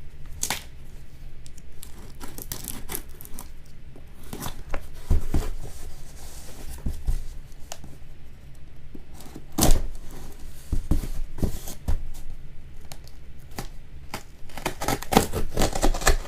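A shipping package being opened by hand: tearing and crinkling of packaging with irregular knocks and clicks, one sharper knock a little under halfway through and busier handling near the end.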